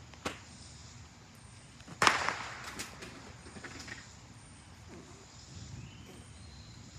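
A small firework going off: a sharp bang about two seconds in that trails off in a few smaller cracks, after a single faint click just before.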